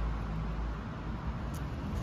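Steady low rumble of city traffic noise, with one faint tick about one and a half seconds in.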